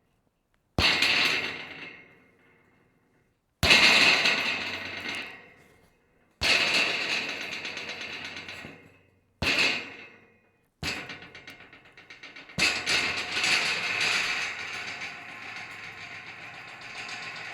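Scrap metal rattling and clattering in a series of sudden shakes, each dying away over a second or two, about five times. About eleven seconds in it becomes a longer, continuous rattle.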